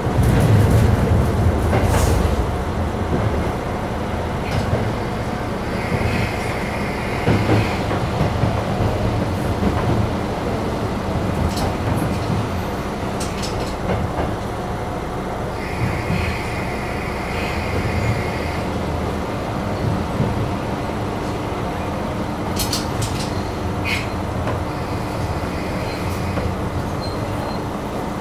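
Hitachinaka Seaside Railway diesel railcar running along the line, a steady rumble and hum. Scattered sharp clicks come as the wheels cross rail joints.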